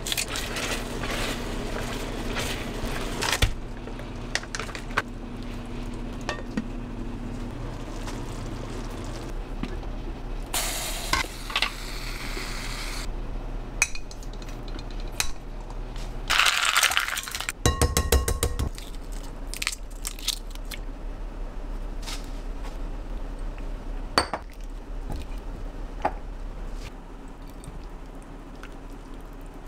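Kitchen handling sounds. Scissors snip green onion over a pan at the start, then glass bowls and dishes clink and knock. Two short hissing bursts come in the middle.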